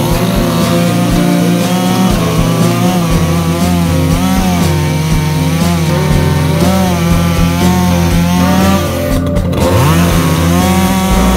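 Echo CS-620P two-stroke chainsaw running under load, its engine pitch wavering up and down as it cuts, with a brief drop in speed and recovery near the end.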